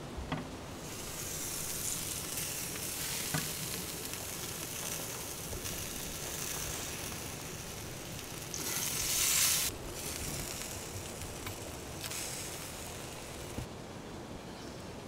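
Bacon-wrapped meat sizzling on a hot grill grate, with a louder surge of sizzling about nine seconds in. The sizzling stops shortly before the end.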